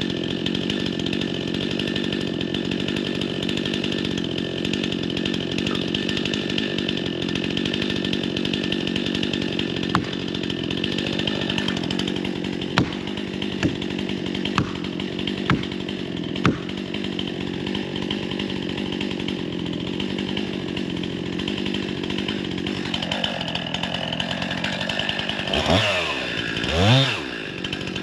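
Two-stroke gas chainsaw running at full throttle, cutting into a tree, with several sharp snaps of wood about ten to sixteen seconds in. Near the end the engine drops off and is revved up and down a couple of times.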